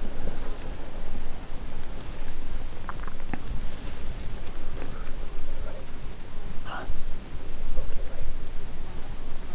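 Insects trilling in one steady, unbroken high tone over a low rumbling noise, with a few faint clicks.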